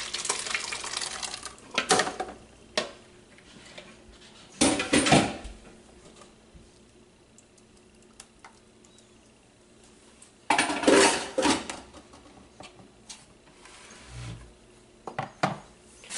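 Salsa poured from a blender jar into a plastic bowl, with plastic and utensil clatter against the bowl and countertop; two louder bursts of clatter about five and eleven seconds in.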